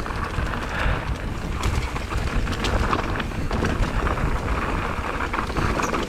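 Mountain bike descending a rocky trail: wind buffeting the microphone over a steady rumble of tyres on rock, with frequent sharp clicks and knocks from the bike rattling over the rocks.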